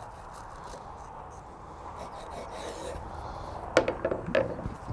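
Knife sawing through a croissant sandwich on a cutting board, a rasping scrape, then a few sharp knocks about four seconds in.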